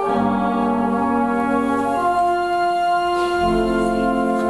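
Wind band playing sustained chords, the harmony shifting about two seconds in, with a low bass coming in near the end.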